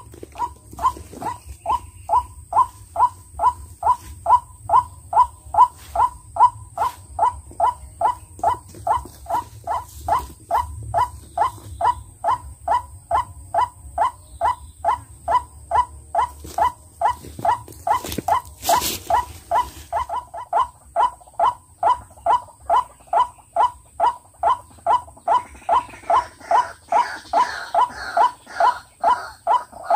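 White-breasted waterhen (ruak-ruak) lure call: one short note repeated evenly, about two and a half times a second. There is a sharp knock about two-thirds of the way through, and in the last few seconds a higher, rougher sound joins.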